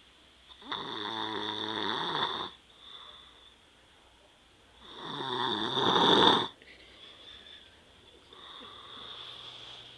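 A man snoring in his sleep: two long, loud rasping snores about four seconds apart, the second swelling to the loudest, with fainter breaths between them.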